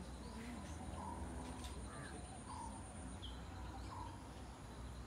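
Birds calling: a short call repeated about every second and a half, with a few higher, brief notes in between, over a faint low background rumble.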